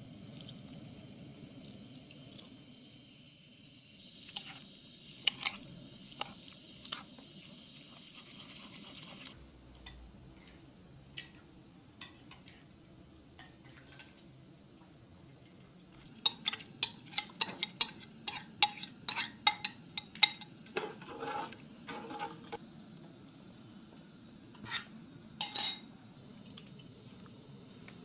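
Metal spoon clinking against a pot while stirring yogurt, with a quick run of clinks about two-thirds of the way in and a few scattered clinks before and after. A steady high hiss fills the first third and cuts off suddenly.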